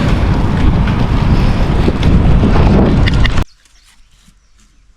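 Wind buffeting the microphone over the noise of a moving vehicle, a loud, even rumble that cuts off suddenly about three and a half seconds in. Only faint, quiet sounds are left after it.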